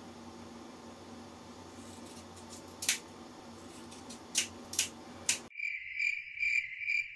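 Scissors snip hair at the nape a few times, sharp single clicks. Then the room sound cuts off abruptly and is replaced by an edited-in crickets-chirping sound effect: a high chirp pulsing steadily about twice a second.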